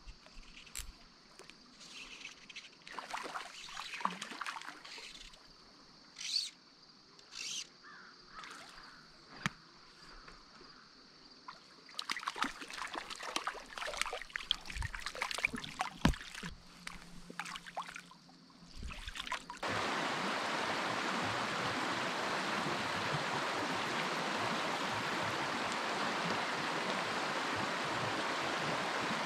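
A hooked trout splashing at the surface of a stream, in scattered splashes that grow into a dense stretch of splashing. About two-thirds of the way through this gives way abruptly to the steady rush of water over a shallow, rocky riffle.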